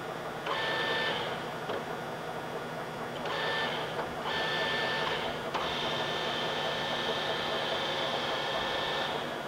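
TOS SU-100 engine lathe running, with a gear-drive whine from the carriage's power feed cutting in and out several times over a steady machine hum; the whine holds longest in the second half.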